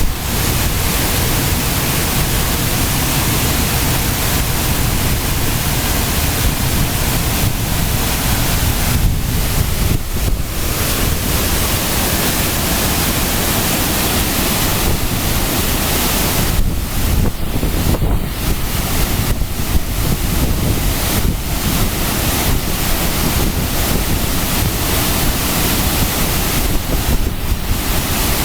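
Waterfall rushing as a loud, steady roar of falling water, with wind buffeting the microphone; the rush briefly thins a few times.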